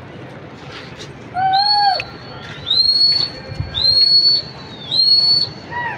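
Sharp, high human whistling, three long notes about a second apart, each sweeping up and then holding, after a shorter, lower hooting call: the kind of whistle pigeon flyers use to drive and steer a flock in the air. A brief low thump comes between the second and third whistles.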